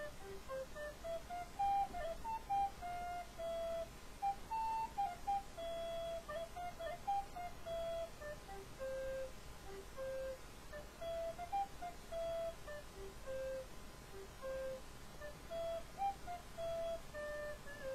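A wooden end-blown flute playing a solo melody of single notes, some short and some held. In the second half the phrases keep coming back to a long low note.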